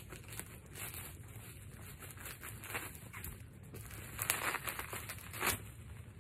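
Plastic bubble wrap rustling and crinkling as it is pulled and torn off a parcel by hand, in irregular strokes, with two louder crackles about four and five and a half seconds in.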